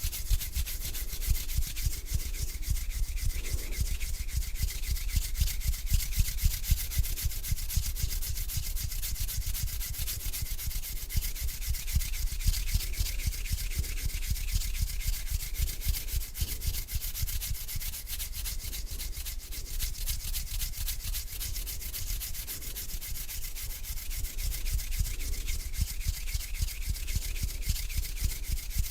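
Hands rubbing together close to the microphone, a continuous dry friction sound with no breaks.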